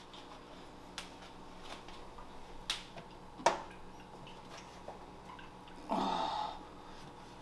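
A planted glass aquarium being set down and shifted into place on a foam leveling mat on a shelf: a few sharp knocks and clicks, the loudest about three and a half seconds in, then a brief rougher sound about six seconds in.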